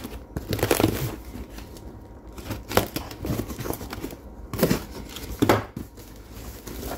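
Packaging being opened and handled by hand: rustling, crinkling and tearing, with a few sharp clicks.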